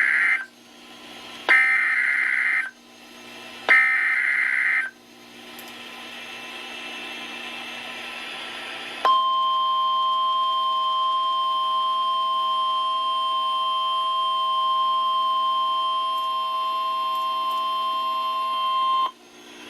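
NOAA Weather Radio Emergency Alert System signal: three bursts of rasping digital SAME header data, each about a second long, the first already under way. After a few seconds of radio hiss comes the steady 1050 Hz warning alarm tone, held for about ten seconds before it cuts off. The signal announces a special marine warning.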